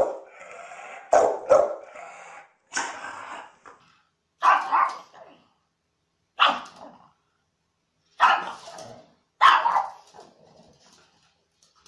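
Dogs barking: first a dog with its head raised giving drawn-out barks, then a pug giving single barks every second or two.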